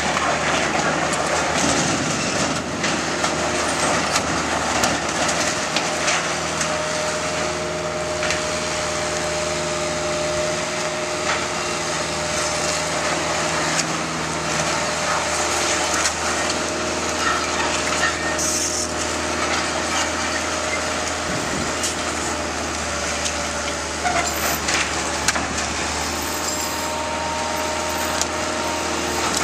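Bobcat 753 skid-steer loader's diesel engine running steadily under load while it tears through a wooden shed, with repeated cracking and splintering of boards and timber.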